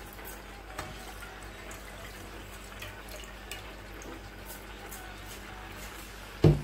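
Wet rice being scooped by hand out of a pan of rinse water, with water dripping and trickling back into the pan as handfuls are lifted and dropped into a pot of boiling stock. A single loud knock near the end.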